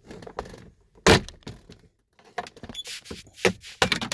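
Flathead screwdriver prying the plastic latch trim out of a 2017 Chevrolet Tahoe center console, with sharp cracks and clicks as the retaining clips let go. The loudest crack comes about a second in, followed by a run of smaller clicks and scrapes in the second half.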